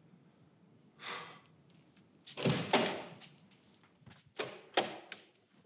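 A short brushing noise, then a run of sharp knocks and thuds. A cluster of hits comes about halfway through, the loudest part, and two more single thumps follow near the end, like objects being handled and set down on a hard surface.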